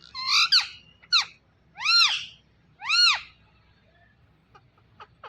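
Ringneck parrot calling: a harsh squawk, a short falling chirp, then two arched calls about a second apart that rise and fall in pitch.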